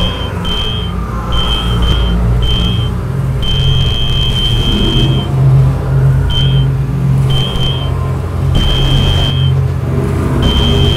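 Dark ambient horror sound design: a low rumbling drone under a high, steady beep that cuts in and out irregularly, mostly in short pieces with a few longer held stretches of up to about two seconds.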